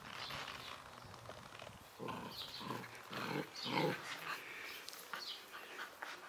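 Spanish mastiff puppy vocalising: about four short sounds a little over half a second apart, starting about two seconds in, the last the loudest.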